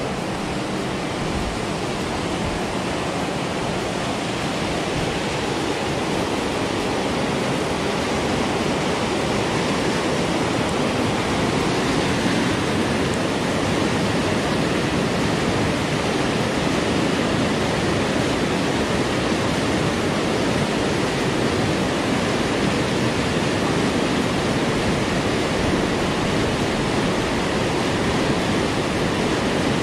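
Irrigation canal water churning white as it pours into a concrete-walled pool: a steady, even rush that grows a little louder over the first several seconds.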